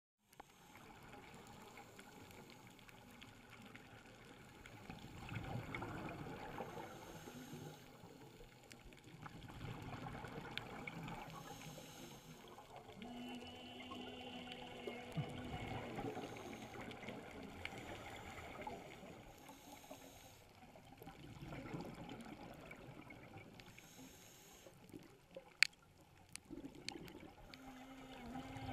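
Scuba divers' regulator bubbles heard underwater: faint bubbling exhalations that swell and fade every few seconds. A brief low hum comes in around the middle, and a single sharp click is heard near the end.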